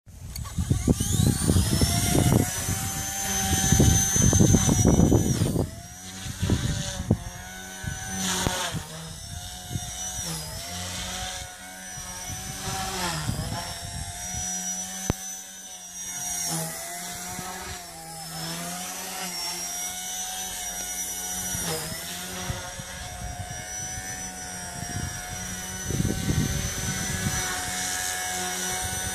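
Blade mCP X BL micro RC helicopter's brushless main motor and rotors spooling up with a rising high whine, then flying, the whine holding steady with brief dips and recoveries in pitch as it manoeuvres. A loud rushing noise covers the first five seconds or so.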